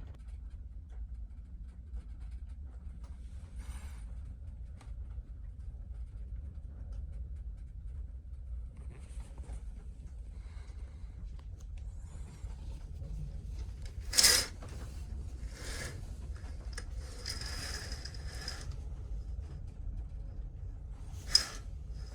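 Steady low drone of a ferry's engines, with rustling and scraping handling noises and two sharp clicks, one about two-thirds of the way in and one near the end.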